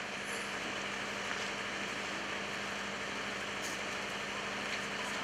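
A steady hum over an even hiss, like a running engine or machine, unchanging throughout.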